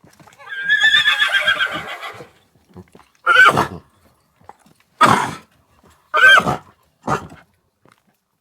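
A horse neighing: one long, wavering whinny, then four short calls spaced about a second or so apart.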